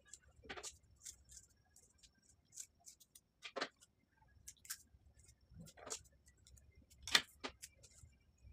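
Hands handling plastic craft materials on a tabletop, including glittery foam sheet, a clear tape roll and a plastic tool, make faint scattered crinkles and sharp clicks. There are several louder clicks, the loudest near the end.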